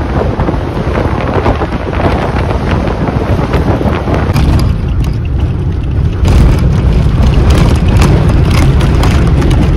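Moving minibus: a steady road and engine rumble with heavy wind buffeting the microphone, growing louder about six seconds in.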